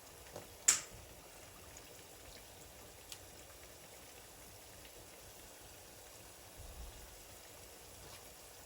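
Coated chicken pakora pieces deep-frying in hot oil: a steady sizzle, with one sharp click less than a second in.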